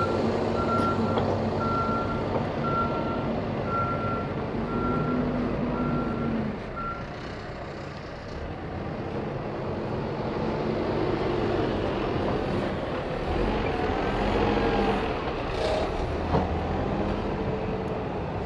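Caterpillar 416F backhoe loader's diesel engine running while its reversing alarm beeps steadily, about once a second. The beeping stops about seven seconds in and the engine keeps running.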